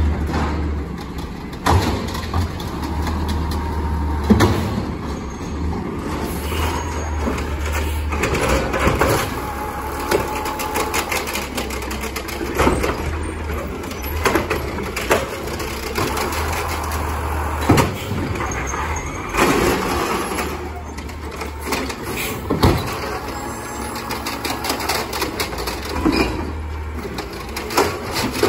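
Diesel engine of an automated side-loader garbage truck running steadily, with several sharp knocks and bangs as the truck works curbside carts with its lifting arm.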